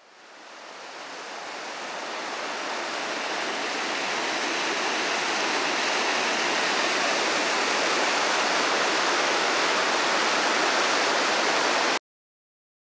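A steady rushing hiss that fades in over the first few seconds, holds even, and cuts off abruptly near the end.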